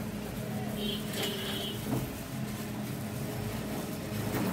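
A steady low mechanical hum, with a faint brief high tone about a second in.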